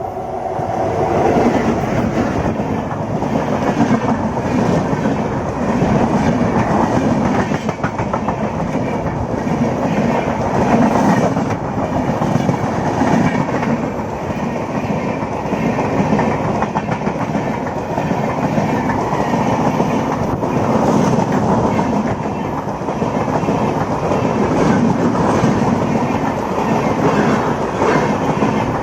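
Train running on the rails, the wheels clattering steadily over the track, building up in the first second or two and staying loud throughout.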